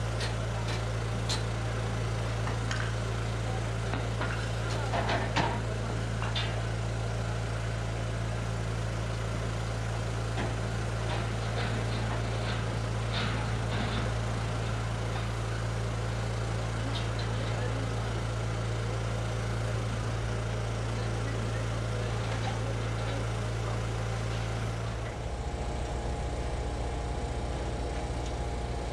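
An engine running at a steady idle, with scattered light clanks and knocks of work on steel over it. The engine sound changes about 25 seconds in.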